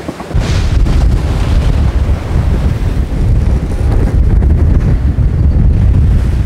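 Wind buffeting the microphone on a sailing yacht at sea: a loud, low, gusty rumble that starts abruptly about half a second in and then holds steady.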